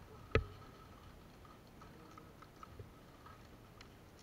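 A single sharp knock about half a second in, with a few faint ticks around it.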